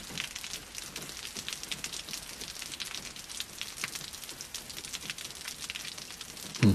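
Steady patter of rain as a background ambience, made of many fine irregular ticks, with a short dull thump near the end.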